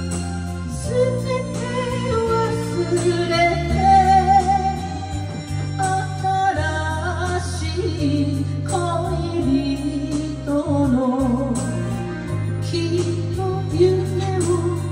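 A woman singing a slow melody with vibrato into a microphone over a karaoke backing track, her voice amplified through the room's speaker.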